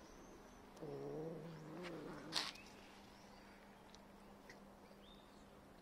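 A cat gives one low, wavering meow lasting under two seconds, about a second in, followed by a sharp click.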